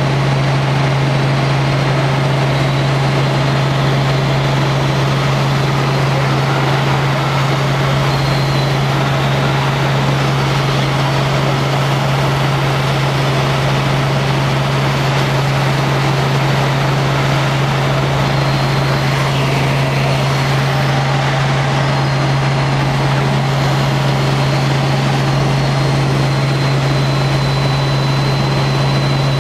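Helicopter in steady cruising flight heard from on board: a loud, constant drone with a strong low hum over an even rush of engine and rotor noise.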